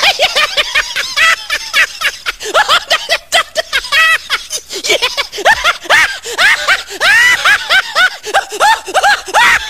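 Dubbed-in comic laughter: a voice cackling in rapid, high-pitched bursts of snickering, several a second, with brief catches of breath.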